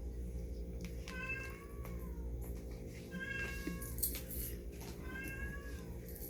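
House cat meowing three times, each call about a second long and falling slightly in pitch, roughly two seconds apart. The cat has been meowing insistently without a clear cause.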